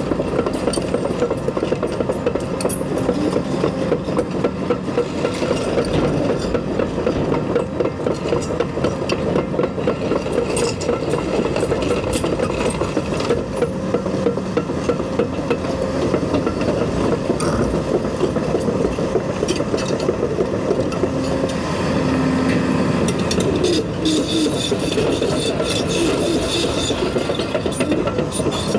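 Cat 335 Next Gen excavator working steadily, its diesel engine and hydraulics running under load while the bucket drags and levels gravel, a continuous rough scraping.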